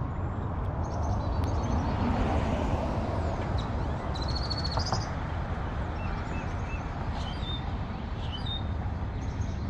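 Wild birds chirping, with a quick trill about halfway through, over a steady low rumble of outdoor background noise.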